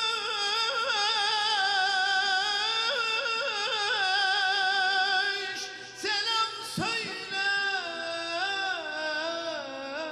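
A man's high, clear voice singing a Turkish folk song (türkü), holding long ornamented notes with wavering melismatic turns. About six seconds in there is a short break with a brief sliding sound, and the singing then resumes in stepped phrases.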